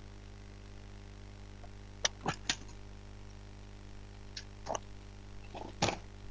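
Computer keyboard keys clicking in short irregular clusters as text is typed, over a faint steady low hum.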